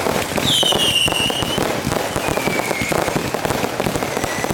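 Fireworks going off in a dense run of crackles and pops, with a falling whistle about half a second in and a second, lower falling whistle from about two seconds in until near the end.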